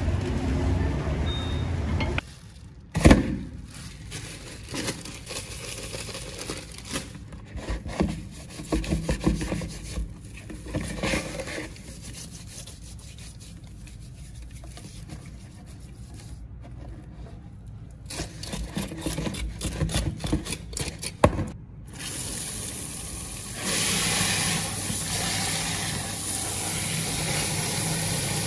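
Whole fish being cleaned by hand: a cleaver working on the scales, a sharp knock about three seconds in, then scattered scrapes and rubbing as the fish's skin is handled. In the last few seconds, a steady rush of water runs into a basin as the fish is rinsed.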